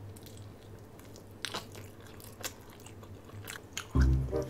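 Close chewing of a bite of pizza topped with brown sugar tapioca pearls, with a few brief soft crunches from the crust. A louder pitched sound comes in near the end.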